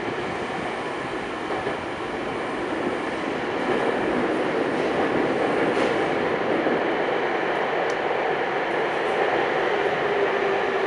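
Running noise inside a Tokyu 5050 series commuter car in a subway tunnel: a steady rumble and rush of wheels and motors that grows louder about four seconds in.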